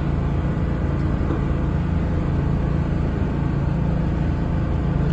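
Tour boat's engine running steadily, a low even drone.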